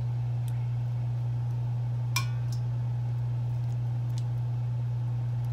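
A steady low hum, with a metal ladle clinking sharply once about two seconds in and a lighter tick just after, as syrup is ladled over baked filo pastries.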